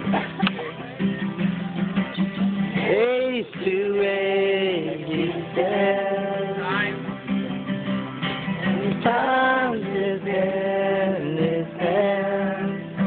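Live acoustic guitar accompanying a voice singing a song, the sung notes held in long phrases that rise and fall over the steady guitar chords.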